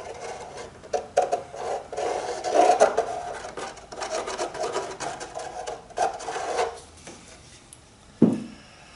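Scraping and rubbing of a plastic glue-bottle nozzle against a cedar-strip hull, in uneven bursts with small clicks, as glue is worked into a gap between the strips. A short low thud comes about eight seconds in.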